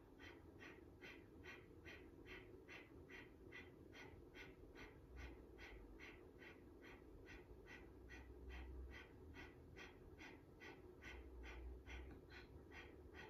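Breath of fire: quick, forceful exhales pushed out through the nose as the navel pumps in, about three a second, even and faint.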